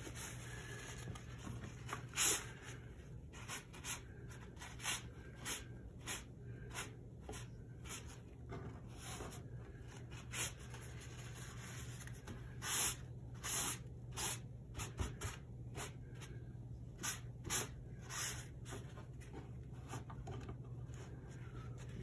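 Paintbrush strokes on rough watercolor paper: a series of short, irregular scratchy swishes, a few of them longer and louder, over a steady low hum.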